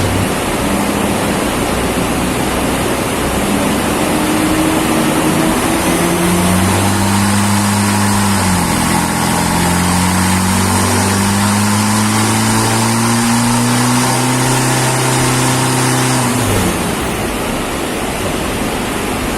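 Nissan Terra engine revving under load. Its pitch climbs for about two seconds, dips, then climbs steadily for about eight more seconds before cutting off abruptly, all over a steady loud rushing noise.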